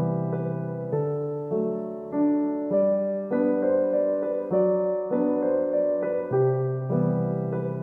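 Background piano music, a gentle melody with notes struck about every half second.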